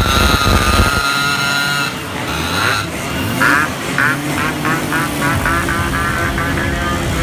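Motorcycle horns sounding in a crowd of Yamaha RX two-stroke motorcycles: one long steady horn blast for about the first two seconds, then a string of short, evenly repeated toots from about three and a half seconds in. The two-stroke engines run underneath.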